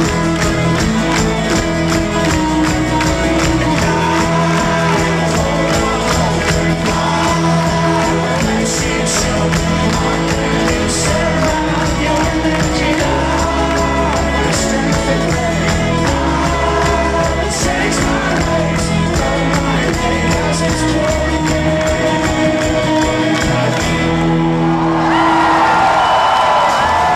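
A live folk-rock band plays a fast, driving strummed outro with singing and crowd shouts over it. The music stops suddenly near the end and the crowd cheers.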